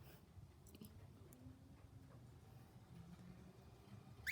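Near silence: quiet room tone with a few faint clicks, and a brief high chirp from a small pet bird right at the end.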